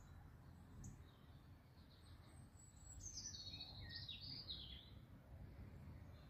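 Faint birdsong: a short run of high chirps and trills about halfway through, over a low steady rumble.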